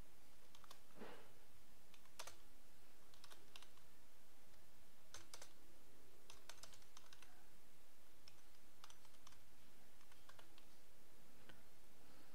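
Computer keyboard keystrokes: irregular clusters of faint clicks over a steady hiss.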